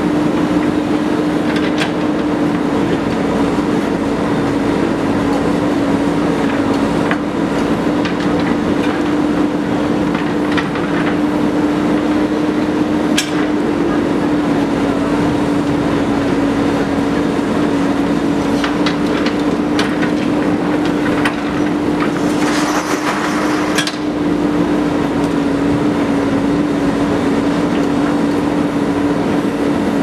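JCB 3DX backhoe loader's diesel engine running at a steady speed while the backhoe arm digs soil, with scattered clanks and knocks from the bucket and arm. A brief rush of noise comes about two-thirds of the way through.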